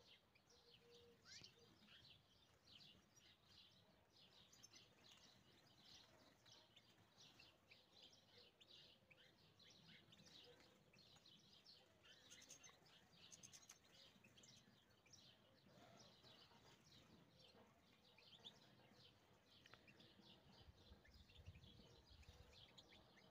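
Faint chirps and twittering of European goldfinches, many short high calls coming irregularly throughout.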